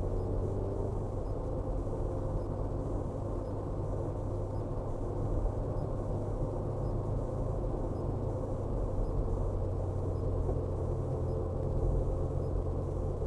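Car engine and tyre noise heard from inside the cabin while driving: a steady low drone with an even engine hum and no revving.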